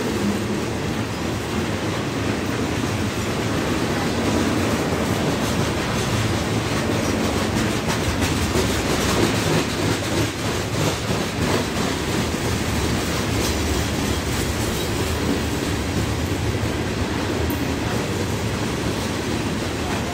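Freight cars of a long mixed freight train rolling past: a steady rumble of steel wheels on rail, with clickety-clack as the wheels cross rail joints.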